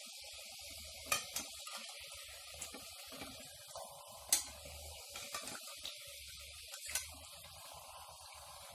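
Hot refined oil sizzling steadily as maida dough cups deep-fry in a steel pot. A metal slotted spoon clicks against the pot a few times as the cups are turned, loudest about four seconds in.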